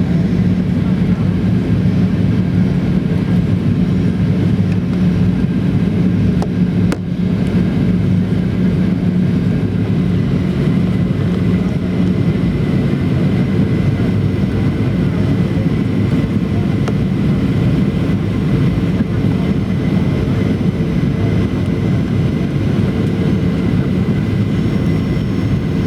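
Steady jet airliner cabin noise inside a Boeing 737-800: engines and airflow running at a constant level. A low hum fades out about twelve seconds in, and a faint high tone comes in later. There is a brief click about seven seconds in.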